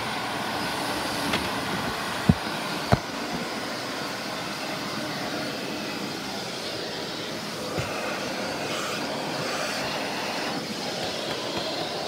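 Shark Navigator Lift Away Professional vacuum cleaner running steadily, with two sharp knocks between two and three seconds in and a fainter one near eight seconds.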